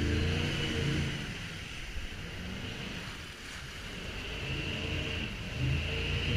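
Jet boat's engine easing off about a second in, leaving the rush of water and wind, then picking back up near the end.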